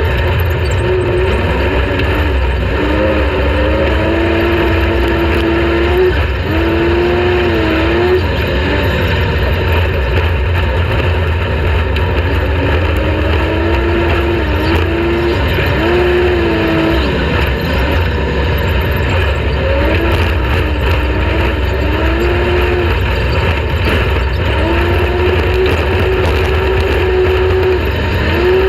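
Off-road race vehicle's engine running hard, its pitch rising and falling every few seconds as the throttle comes on and off, over a constant low rumble.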